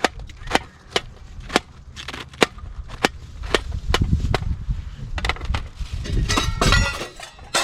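A series of sharp, irregular snaps or knocks, roughly one or two a second, with a low rumble in the middle and a quick cluster of clicks near the end.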